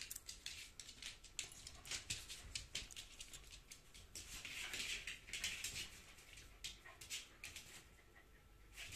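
Faint clicking and pattering of a red fox's and a dog's claws on a laminate floor as they walk about, with a stretch of soft rustling about halfway through.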